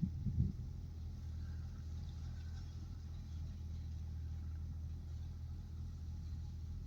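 Tractor engine running steadily with a low, even drone, with a few knocks in the first half-second.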